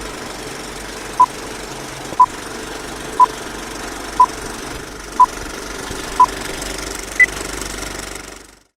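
Short electronic beeps, one a second, six at the same pitch and a seventh higher, like a countdown or time signal, over a steady rumbling mechanical drone. All sound cuts off abruptly near the end.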